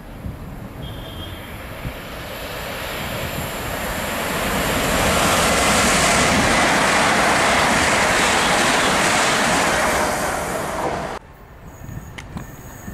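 Great Western Railway Class 387 electric multiple unit approaching and running past. Its wheel-and-rail rush builds over a few seconds to a loud, steady level, then cuts off abruptly about eleven seconds in, leaving a quieter background with a few clicks.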